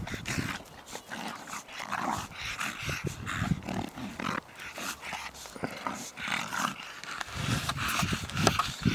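Two bully-breed dogs play-fighting: scuffling with a few low play growls, a little louder near the end.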